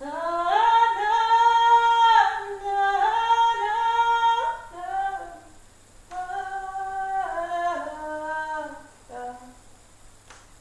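A woman singing a slow melody solo and unaccompanied, in two long phrases of held, gliding notes with a short break about six seconds in.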